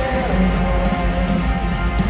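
Live rock band playing, electric guitar strummed over heavy, booming bass.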